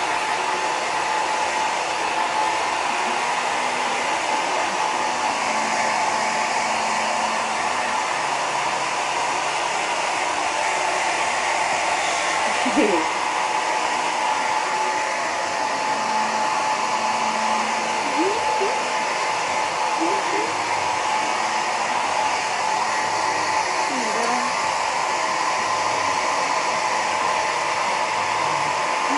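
Handheld hair dryer blowing steadily while drying a dog's fur, a steady whine riding on the rushing air. A few brief rising squeaks come through it now and then.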